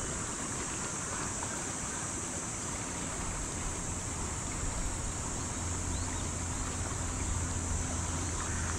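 Outdoor riverside ambience: the shallow river's rippling water and wind on the microphone, under a steady high-pitched hiss.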